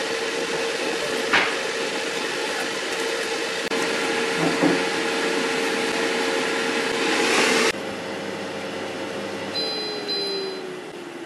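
Philips Airfryer XXL fan running with a steady whir and hum, and metal tongs clicking against the chicken and basket. Near the end the fan winds down with a falling tone, and short high electronic beeps sound as the timer reaches zero and the cooking cycle ends.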